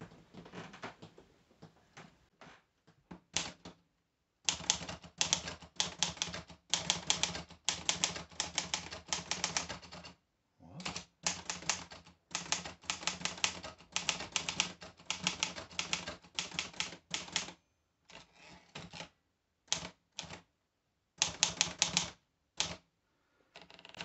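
Olivetti Lettera 33 portable manual typewriter being typed on: quick runs of key strikes, each a sharp clack of the typebar on the platen, starting about four seconds in with a brief pause midway, then thinning to a few scattered strokes near the end.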